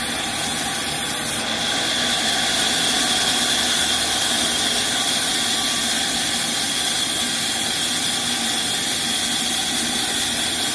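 Large sawmill band saw running and ripping through a log, a steady, dense machine noise with a high hiss. It grows a little louder and brighter about a second and a half in.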